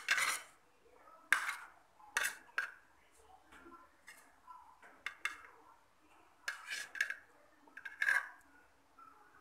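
Metal spoon scraping and clinking against a plate while scooping up rice: a string of about ten short, sharp scrapes, some in quick pairs.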